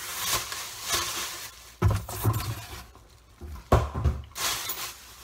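Tissue paper rustling and crinkling as a mask is unwrapped from it, with two sudden thumps, about two and about four seconds in.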